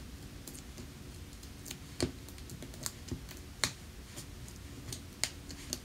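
Fingernails picking at and peeling the backing off foam adhesive dimensionals on cardstock. It sounds as scattered, irregular small clicks and taps, about a dozen in all.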